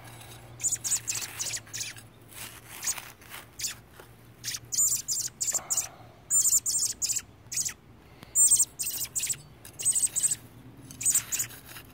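Young American robin giving many short, high chirps in quick runs: begging calls while it waits beside a hole being dug. A metal garden trowel scrapes and digs in soil underneath.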